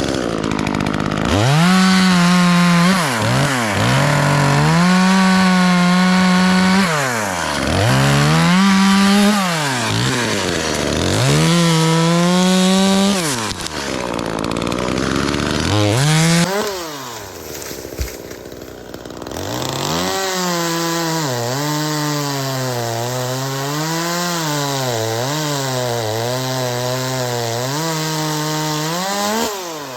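Chainsaw engine revved up and let back down about five times in a row. In the second half it runs long and steady at a slightly lower, wavering pitch, like a chain pulling through wood under load.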